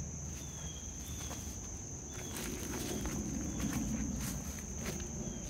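Insects, crickets, trilling as one steady high tone, with footsteps and rustling of dry brush and leaves underfoot.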